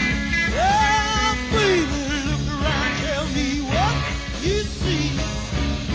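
Psychedelic rock band playing live, with a melody line that slides and bends up and down in pitch over a steady low backing.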